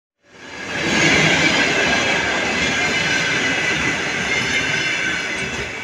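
Passenger coaches rolling past on the rails, the wheels rumbling with a high-pitched squeal and ringing from the steel wheels on the track. It fades in over the first second and eases off near the end.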